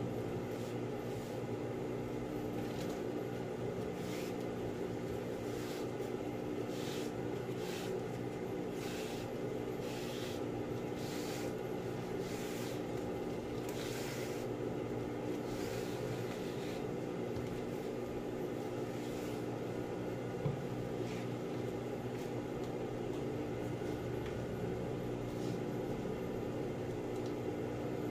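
Steady electric motor hum, with short crinkling rustles of vinyl sheeting and binding tape being handled, mostly in the first half.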